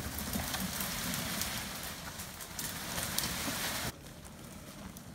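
Hunter WOLF six-wheeled unmanned vehicle pushing through dense brush: a continuous crackling and snapping of branches and leaves. About four seconds in it drops suddenly to a quieter rustle with a few faint clicks.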